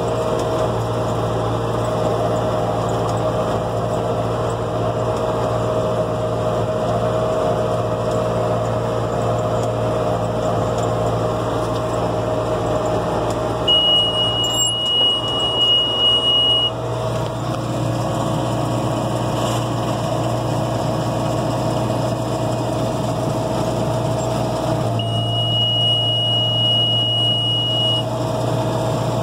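John Deere 6400 tractor's diesel engine running steadily under baling load, its note dropping for a stretch in the middle and coming back up. A steady high electronic beep sounds twice, each lasting about three seconds, about eleven seconds apart.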